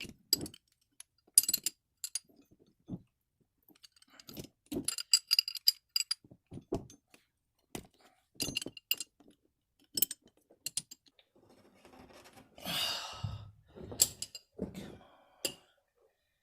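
Wrenches and steel grease fittings being picked up and handled: scattered sharp metallic clinks and taps with a bright ring, and a brief rustling scrape near the end.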